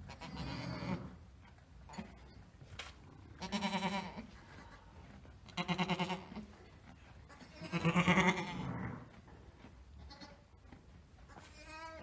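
Ewe in labour with her second lamb, bleating: three loud, wavering bleats about two seconds apart, the last the longest, after a lower call at the start. A higher, rising call comes near the end.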